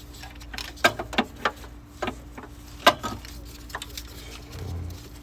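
Scattered sharp clicks and knocks from hands working an engine wiring harness, its plastic clips and connectors, as it is pulled loose, with the loudest click about three seconds in.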